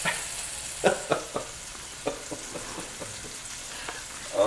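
Flour-dusted cube steaks browning in vegetable oil in a stainless steel skillet: a steady sizzle with a few sharp pops in the first couple of seconds.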